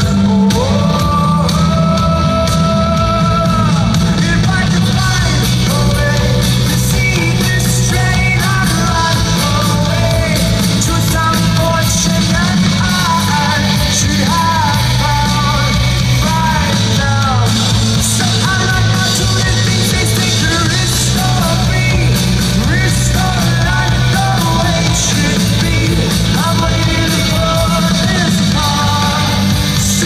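Live indie rock band playing loudly with a male lead singer, heard from the crowd, with bass, drums and guitar under the sung melody.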